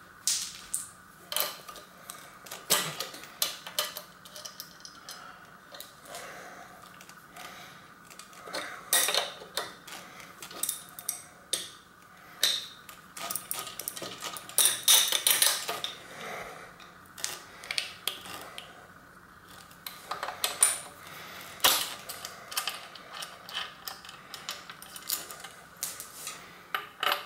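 Metal tool clicks, clanks and scrapes, coming irregularly, as a bicycle crank arm is taken off with a crank puller turned by an adjustable wrench.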